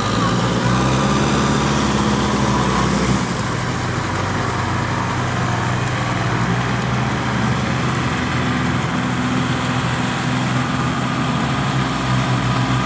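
Small farm tractor's engine running steadily as the tractor works a flooded rice paddy on cage wheels.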